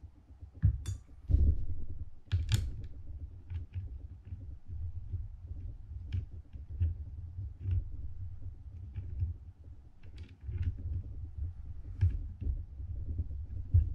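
Small irregular metal clicks and taps of Penn International II 50T fishing reel parts and a spanner wrench being handled and fitted, over low handling bumps. The sharpest clicks come about one and a half and two and a half seconds in.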